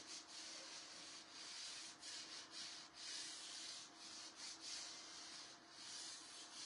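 Faint, quick rubbing strokes against the chalk-painted canning jar, coming in an irregular run with short breaks between strokes.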